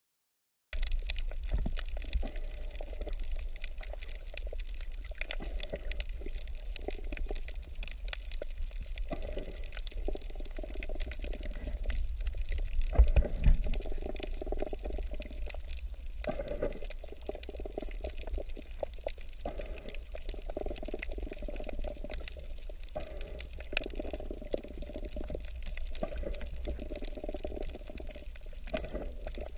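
Underwater sound picked up by a camera on a coral reef: a muffled sloshing, bubbling water noise over a low rumble, with scattered faint clicks. It swells briefly about halfway through.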